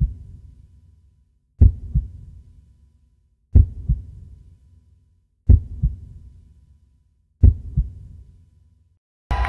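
Cinematic heartbeat sound effect: five deep, slow double thumps about two seconds apart, each a heavy beat followed closely by a softer second one and fading out.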